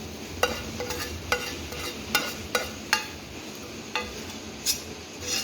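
Metal spoon or spatula scraping and tapping against a metal kadhai while scooping the cooked filling out into a bowl: about eight irregular clinks, each ringing briefly, over a soft steady hiss.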